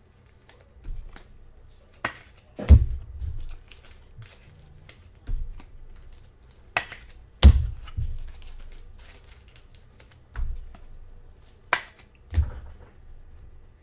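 Hands handling trading cards and their holders at a table: irregular taps, clicks and a few heavier thumps as cards are set down, with faint rustling between.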